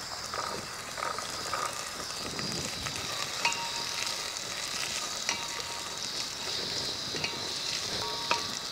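Chopped vegetables (onion, tomato, carrots, peas and green chillies) sizzling as they fry in oil in a stainless-steel pot on a gas burner, stirred with a wooden spatula. A few knocks against the pot leave it ringing briefly.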